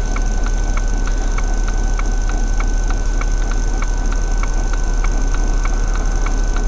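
Car turn-signal indicator clicking steadily, about three clicks a second, over the low, even rumble of the engine and road inside the cabin.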